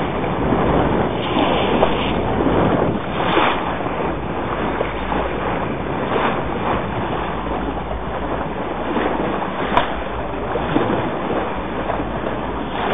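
Steady rush of wind on the microphone and water washing around a boat at sea, with one sharp knock about ten seconds in.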